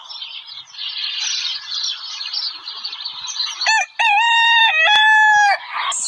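A desi rooster gives a short call, then a long crow of several flat, stepped notes about four seconds in. Before it, a dense steady hiss of background noise fills the first few seconds.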